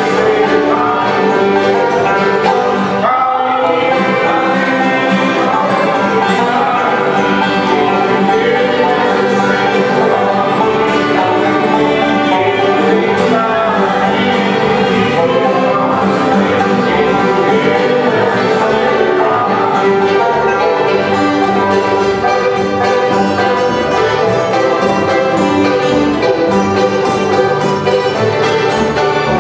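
Bluegrass gospel band playing live: banjo, acoustic guitar, fiddle, mandolin and upright bass together in a steady tune.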